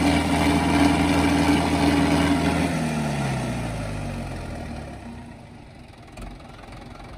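Farm tractor's diesel engine held at high revs, then easing off about three seconds in, its pitch falling over a couple of seconds as it drops back to a much quieter idle.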